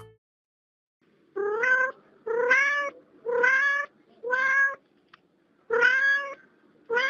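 Domestic cat meowing, a recorded sound effect: short meows of about half a second each, roughly one a second, starting about a second and a half in, with a slightly longer pause after the fourth and another meow beginning at the very end.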